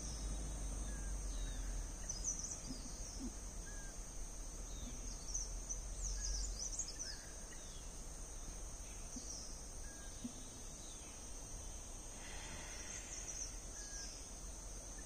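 Outdoor ambience of a wooded hillside: insects droning steadily and high-pitched, with short bird chirps now and then. A low rumble fills the first half and fades out about seven seconds in.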